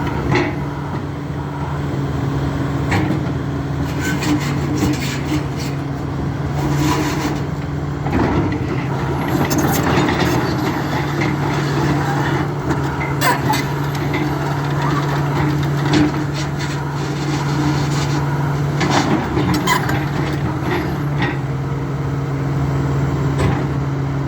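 Link-Belt 350X excavator's diesel engine running at a steady speed, with scattered clanks and knocks.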